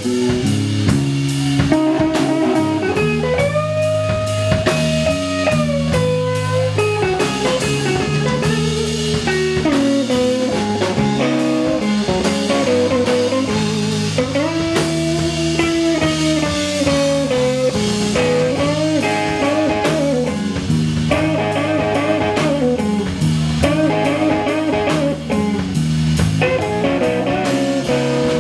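Live blues band playing an instrumental passage: an electric guitar plays long held lead notes that bend up and down in pitch, over bass guitar and a drum kit.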